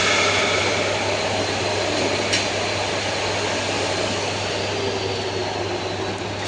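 Angle grinder running steadily without cutting, a constant whirring hiss over a low hum, with one brief tick a little past halfway.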